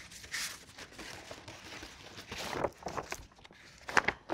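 A long roll of painted paper being unrolled and spread on a table, the paper rustling irregularly, with a louder crinkle about four seconds in.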